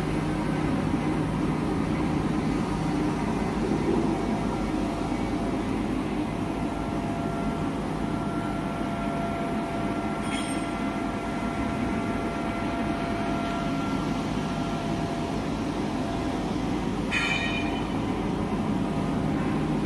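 Napkin paper slitting and cutting machine running: a steady mechanical rumble with a faint hum, and two brief sharper noises about ten and seventeen seconds in.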